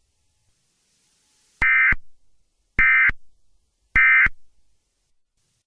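Three short bursts of Emergency Alert System digital data tones, the end-of-message signal, each about a third of a second long and a little over a second apart.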